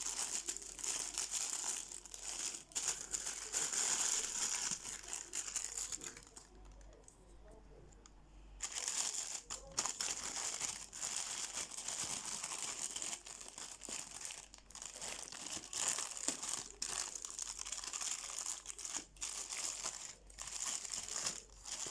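Postal parcel packaging being crumpled, crinkled and torn open by hand, with a short lull about a third of the way through.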